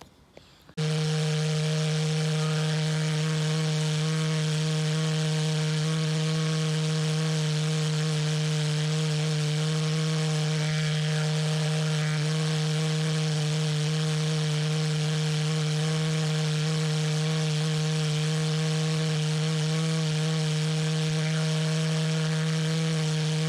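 Small propane-fuelled pulse jet engine running, a loud buzzing drone at one steady pitch that cuts in abruptly about a second in. A 5-inch pipe is held to the end of its barrel as an extension, which makes no difference to how it runs.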